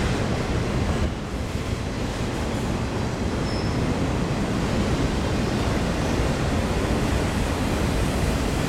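Freight train of autorack cars rolling past, a steady low rumble of steel wheels on the rails.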